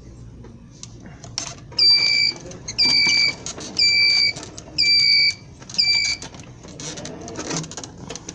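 Electronic beeper of a motorized store shopping cart sounding five even beeps about a second apart, each a steady high tone held for about half a second.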